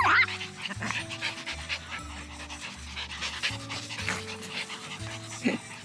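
A dog panting rapidly, with a sharp yip right at the start and a short whine near the end.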